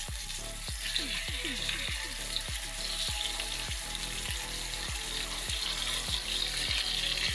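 Minced-meat burger patties sizzling in a hot frying pan, a steady frying hiss with an occasional scrape of a wooden spatula. A steady low thumping beat runs underneath, about two to three a second.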